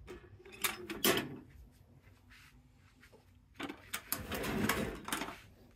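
Steel ammo can with lava rocks on its metal grate being handled. There are a couple of sharp metallic clicks about a second in, then a longer stretch of scraping and knocking near the end.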